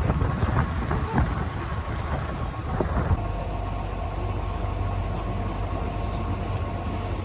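Boat engine running steadily with a low rumble, with some wind on the microphone. A few sharp knocks come in the first three seconds, and a steady whine sets in about three seconds in.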